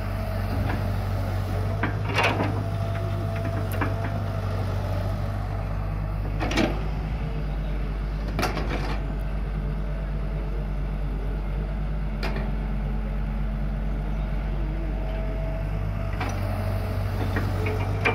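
Caterpillar E120B excavator's diesel engine running steadily under working load as it digs and swings sand, with a faint whine coming and going and an occasional sharp clank from the bucket and linkage, the last as the bucket tips its load into the truck near the end.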